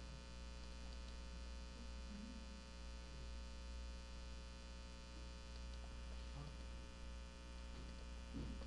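Steady low electrical mains hum with a faint buzz of many even overtones above it.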